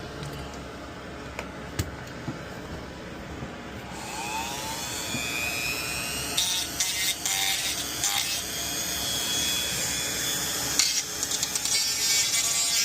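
A handheld rotary tool starts about four seconds in with a rising whine, then grinds unevenly, its pitch shifting as the bit bites into the material. It is shaving material down so a part on a control board can reach its terminal. Before it starts there are only a few light handling clicks.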